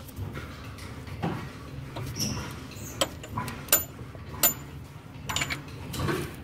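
Scattered sharp metallic clinks and knocks of hand tools being handled against engine metal, a few with a brief high ring, over a low steady hum.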